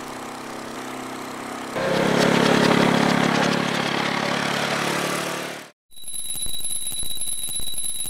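Cartoon engine sound effect: a motor idling, then running louder as the vehicle drives away. After a brief break, a different motor hum with a steady high-pitched whine comes in and stops suddenly near the end.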